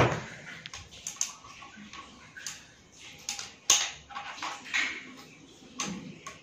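Clicks and knocks from a folding kick scooter's handlebar and stem clamp being handled while someone tries to open it out, with one sharp knock at the start and scattered lighter clicks after.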